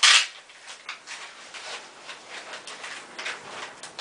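Paper and packaging being handled: a short loud rustle right at the start, then soft scattered rustles and light clicks.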